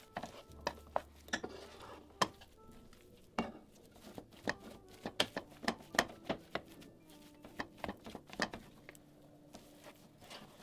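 Metal potato masher knocking and clicking against the bottom and sides of a pan as boiled potatoes are mashed, in irregular strokes about one to three a second.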